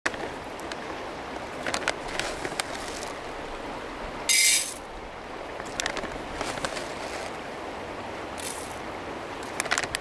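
Plastic bag of rice crinkling and clicking as hands open its resealable top, with one loud short rasp about four seconds in and a softer one later, over the steady rush of a river.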